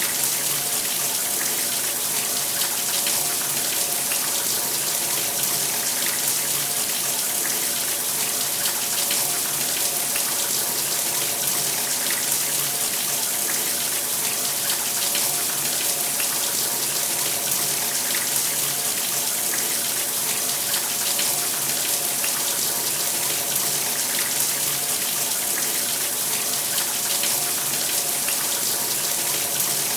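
Shower running steadily, a continuous hiss of water spraying and splashing.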